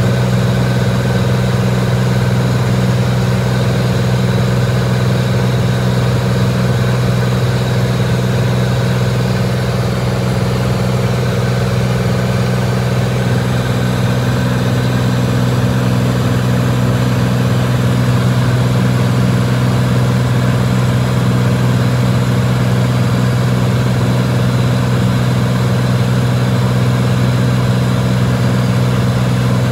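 Lancair Columbia 300's six-cylinder Continental piston engine and propeller running at a steady speed, a loud, unchanging low drone.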